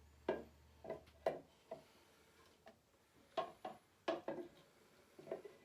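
Irregular clacks and knocks of hard statue parts being handled and set down, about a dozen in a few seconds; a low hum stops about a second in.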